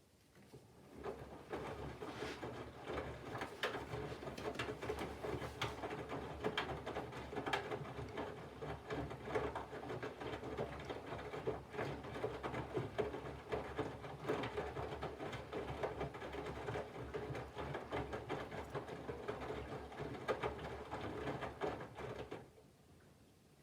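Candy GVF4 137 LWHC/2 front-loading washing machine in its main wash: about a second in the drum starts turning, tumbling the wet load with a steady patter of small knocks, and it stops near the end.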